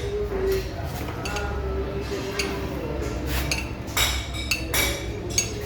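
Metal tools and engine parts clinking and knocking against each other at an irregular pace, several sharp clinks over a low hum.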